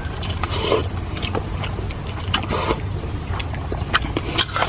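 Spoon clinking and scraping in a bowl of soup, with scattered sharp clicks and eating noises, over a steady low hum.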